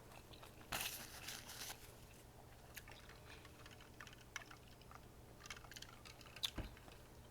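Faint chewing with small wet mouth clicks, and a short rustle about a second in. A soft low thump comes near the end.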